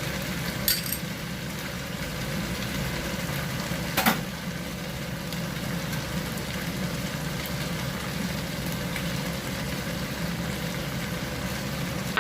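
Chicken and vegetables sizzling as they simmer in a pan on the stove, over a steady low hum. Two sharp clicks, about a second in and about four seconds in.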